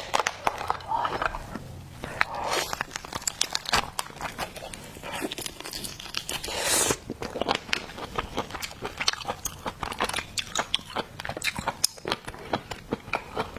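Close-up crunching and biting into crayfish, many sharp cracks of shell, with chewing; a longer crackling burst about two-thirds of the way through.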